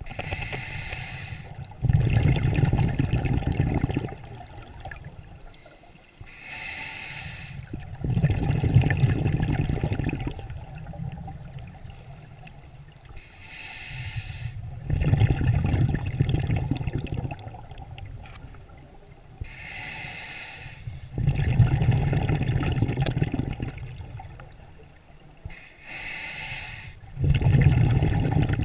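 Scuba diver breathing through a regulator underwater, heard through the camera's housing. Each inhale is a short hiss, followed by about two seconds of rumbling exhaled bubbles, one breath about every six seconds, five breaths in all.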